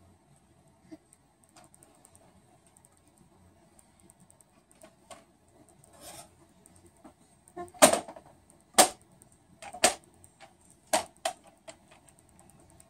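Scattered sharp taps and knocks on something hard: a few faint ones early on, then four loud, distinct knocks in the second half.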